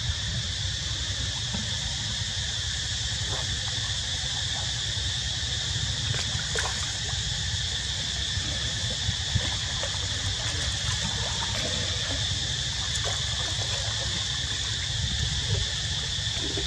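Light splashing and trickling of water as monkeys swim through a pond, over a steady high-pitched insect buzz and a low rumble.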